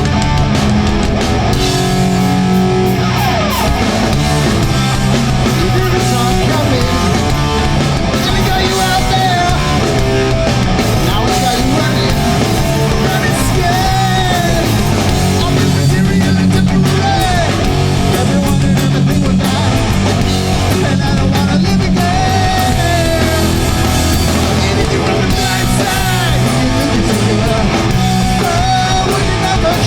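Hardcore punk band playing live, loud: distorted electric guitars, bass and drums, with a voice weaving pitched lines above them.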